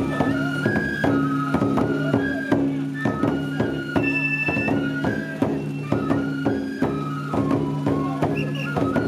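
Traditional Japanese festival music: a high flute melody of held notes over regular percussive beats and a steady low drone.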